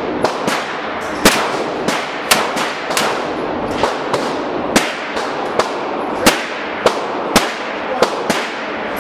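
Handgun shots on an indoor shooting range: a rapid string of sharp reports at irregular intervals, some louder than others, each with an echoing tail from the range.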